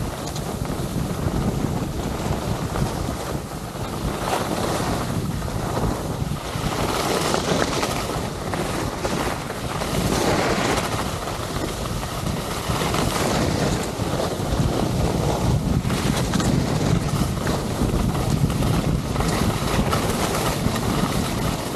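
Wind buffeting the camera microphone while skis run over groomed snow at speed, a steady rushing noise that swells and eases.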